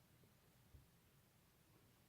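Near silence: room tone in a pause between bursts of keyboard typing, with one faint low knock a little under a second in.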